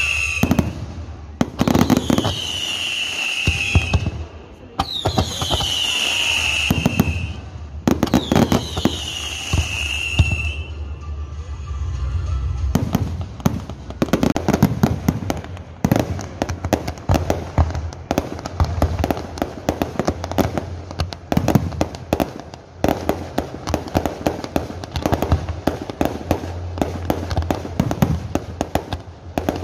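Fireworks display: shells bursting with bangs and crackle, and four falling whistles during the first ten seconds or so. From about thirteen seconds in, the bangs come thick and fast in a rapid barrage.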